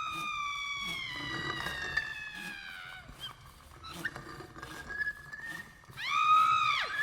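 High-pitched screaming cries in a horror torture-chamber sound effect: one long wail that slowly falls in pitch over about three seconds, then a shorter, louder cry near the end that swells and drops off sharply.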